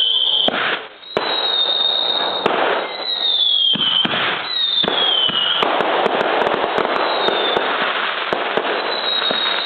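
A 125-break fireworks finale firing in quick succession: sharp bangs over a dense crackle, with several whistles that fall in pitch. It drops back briefly just under a second in, then carries on.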